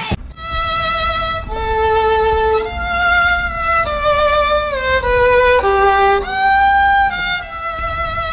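Violin playing a slow melody of long bowed notes with vibrato, about one note a second, moving mostly downward and then back up.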